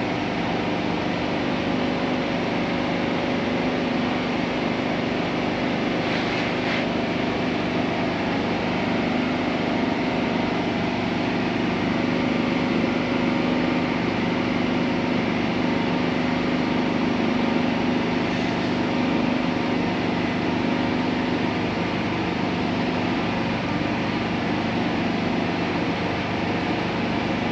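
A running engine hums steadily, with a constant low drone, and a short hiss about six seconds in.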